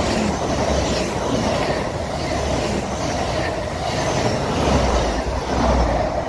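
A Great Western Railway Hitachi Intercity Express Train passing close by at speed: a loud, steady rush of wheel-on-rail and air noise with a regular pulsing clatter, and a deeper rumble swelling near the end.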